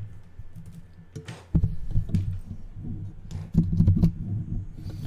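Irregular computer-keyboard typing and clicking, with dull thumps, picked up close by a desk microphone over a low hum. It is sparse for the first second or so, then busier.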